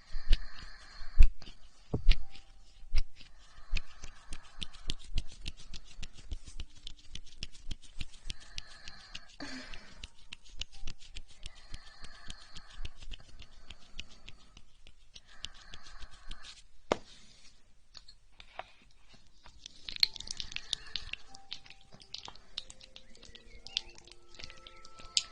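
ASMR breathing close to the microphone, a soft breath about every three to four seconds, over continual fine crackling and tapping.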